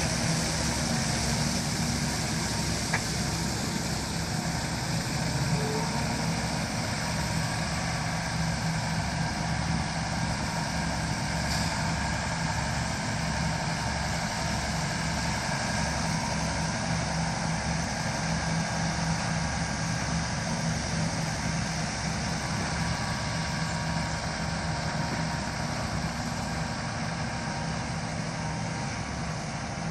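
Tractor diesel engine running steadily at constant speed during drag-hose slurry spreading, with a regular low throb.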